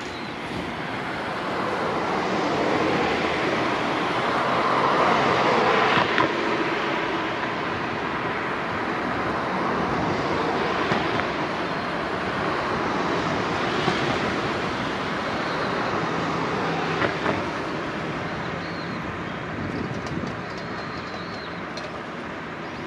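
Road traffic noise from vehicles passing on an adjacent road, a broad rushing sound that swells to its loudest about five seconds in and slowly eases off, with a few short sharp clicks along the way.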